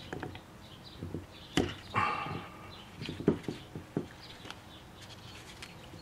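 Clicks and knocks of a brake master cylinder and its plastic reservoir being handled as parts are pressed into it, with a short squeak about two seconds in.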